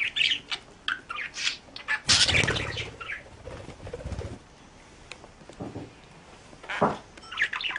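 Pet parrot making short chirping calls, then a burst of rustling noise lasting about two seconds, with a few more calls near the end.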